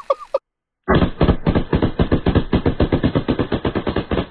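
Two full-auto-converted 1911 pistols in .45 ACP firing automatic bursts. The fire breaks off for half a second near the start, then resumes as one long rapid rattle of shots lasting about four seconds.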